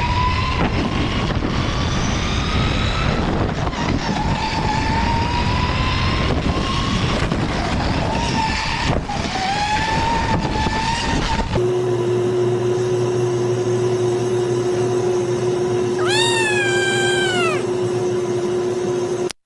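AI-generated go-kart engine sound at speed, its pitch climbing in three or four rising runs as it accelerates. After a sudden cut about twelve seconds in, a steady hum with one kitten meow that rises and then falls, lasting over a second.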